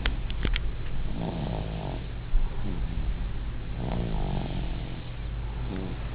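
An 8-month-old baby snoring in sleep: short pitched snores about every two seconds over a steady low hum. A brief knock about two seconds in.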